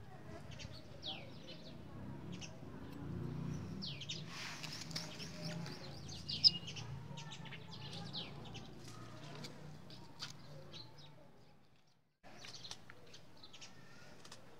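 Small birds chirping over and over, in short high calls that sweep downward, with a low steady hum underneath. A single sharp click stands out about six seconds in, and all sound cuts out for a moment near the end.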